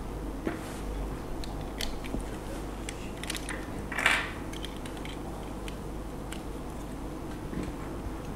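Small plastic Diaclone toy parts being handled on a hard tabletop: scattered light clicks and taps, with one louder, brief scrape about four seconds in.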